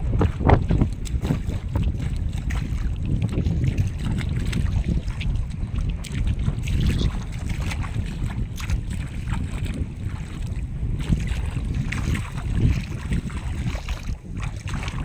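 Wind buffeting the microphone in an uneven low rumble, over moving seawater, with scattered small knocks and splashes.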